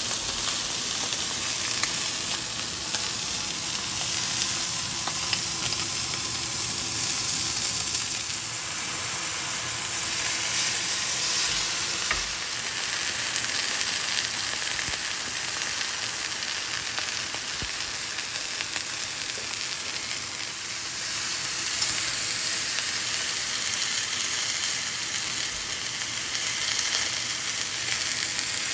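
T-bone steak frying in hot fat in a skillet: a steady sizzling hiss with a few crackles as the meat sears.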